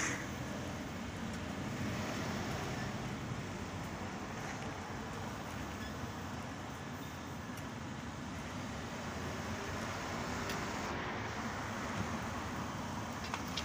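Street traffic: cars driving past, a steady noise of passing vehicles.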